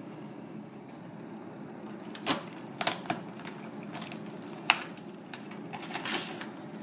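Cooked crab's shell cracking and clicking as hands pry the top shell off and break the body apart: several sharp cracks, the loudest a little before five seconds in, over a steady low room hum.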